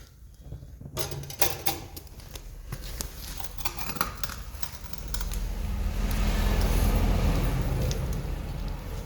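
Wood campfire crackling and popping with sharp snaps for the first few seconds, then a low rumbling rush that swells over about three seconds and fades near the end.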